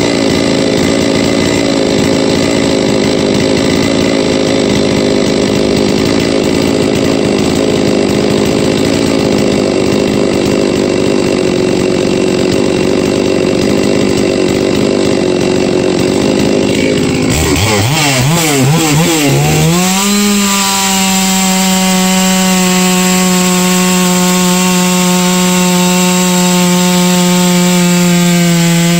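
Freshly rebuilt Huztl-based MS660-clone two-stroke chainsaw on its initial tune: it runs steadily for about seventeen seconds, is revved up and down a few times, then holds a steady high pitch at full throttle as it cuts into a log.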